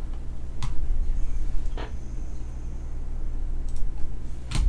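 A steady low electrical hum with three short faint clicks, from trading cards being handled and set down while they are sorted.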